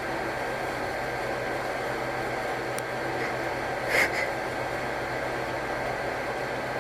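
Steady background hum with one short, sharp intake of breath about four seconds in, during a sneeze buildup.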